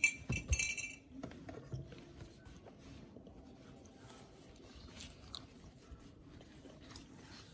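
Handling noise from a soft denim baseball cap: a few clicks and knocks in the first second as it is lifted off its plastic display stand, then faint fabric rustling as it is turned over in the hands.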